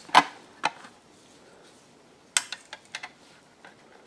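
Plastic and metal parts of a dismantled Asus internal DVD drive clicking and knocking as they are handled: two sharp knocks in the first second, then a cluster of clicks about two and a half to three seconds in.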